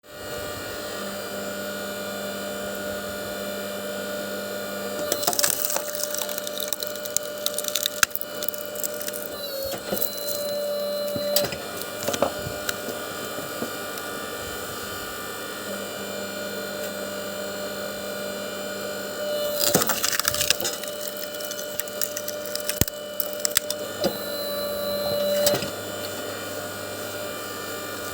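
Power saw running steadily and twice cutting through stove wood, each cut a few seconds of loud splintering and cracking with a rising whine near its end.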